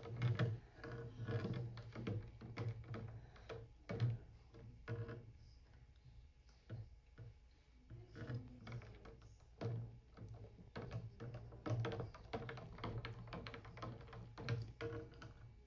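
Stirring in a small plastic tank of water: irregular light knocks and taps of the stirrer against the tank.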